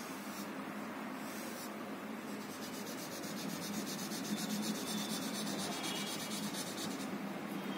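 Black felt-tip marker rubbing back and forth on paper as it fills in a solid dark area: a steady scratchy scribbling that gets a little louder about halfway through.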